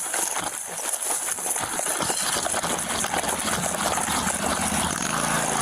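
Heavy footfalls of someone running, picked up on a body-worn camera, then about two seconds in a steady engine hum rises and holds.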